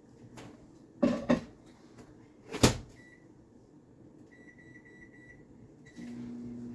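A microwave oven being loaded and started: a couple of knocks about a second in, then the door shutting with a sharp click. A short keypad beep follows, then a longer beep about a second later, and the oven starts up near the end with a steady low hum.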